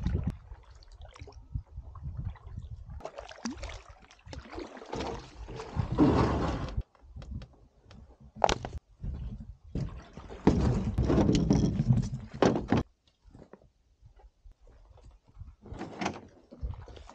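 Noises of a canoe being paddled into shore: water splashing, knocks and scrapes on the hull, in several short bursts that break off suddenly.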